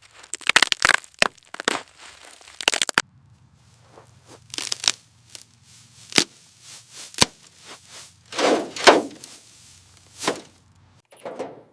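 A series of irregular sharp knocks and cracks with bursts of scraping or tearing noise, over a faint steady low hum through most of the middle.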